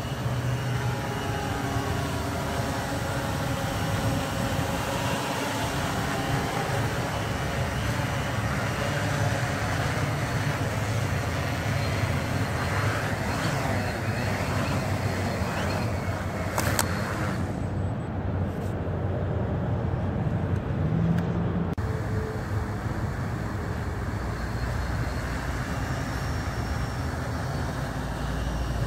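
Electric multirotor drone's motors and propellers droning steadily as it hovers and manoeuvres low over the ground, the pitch of the motor tones shifting as the throttle is worked. It is a test flight of revised MultiWii flight-controller PID settings.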